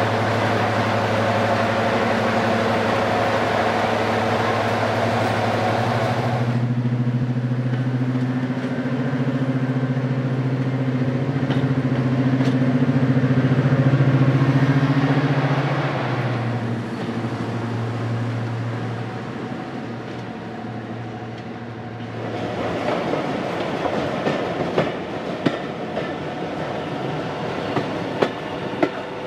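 British Rail Class 55 Deltic locomotive's Napier Deltic two-stroke diesel engines running while the locomotive stands. After a cut, the locomotive passes under power, its engine note rising, loudest about halfway through, then fading. Near the end, carriage wheels clatter over rail joints in a clickety-clack with sharp clicks, heard from aboard the train.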